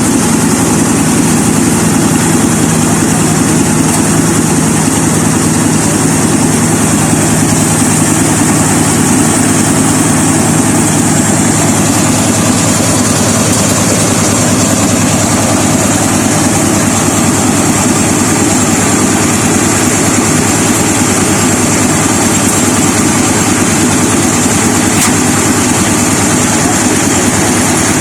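Mini combine harvester's engine running steadily and loudly, with a low steady tone in its note that changes about twelve seconds in.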